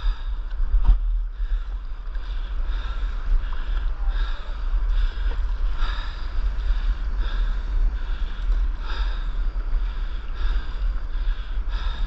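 Wind buffeting the microphone with a low rumble, over water sloshing and splashing against a board out on the sea in soft surges about once a second.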